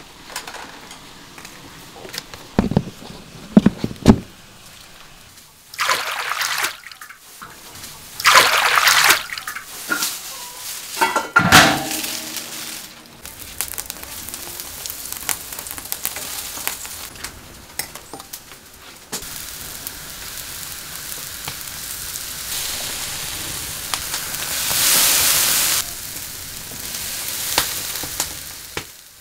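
Cooking at a wood-fired stove: a few sharp knocks a few seconds in, then short bursts of hissing and a steady sizzle from an iron wok, swelling loudest near the end as vegetable dumplings are laid into it.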